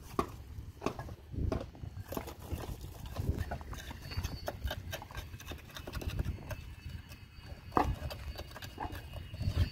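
Irregular knocks and taps of steel rebar being handled and set inside a wooden column form, the loudest knock about eight seconds in.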